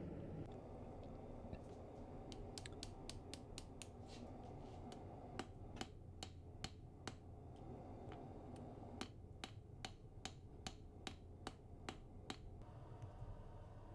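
Hand hammer striking a hot, split railroad spike on an anvil to flatten its legs: faint, sharp taps in a quick run of several blows a second, a short pause, then a second run.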